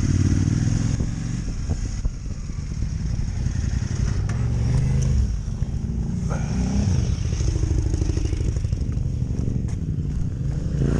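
Adventure motorcycle engine running off-road, its revs rising and falling throughout, with a few sharp clicks along the way.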